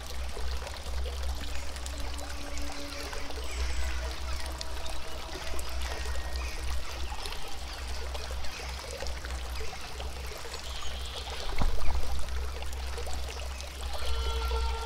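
Running water, like a stream trickling, with soft held musical tones over it and one sharp knock about twelve seconds in.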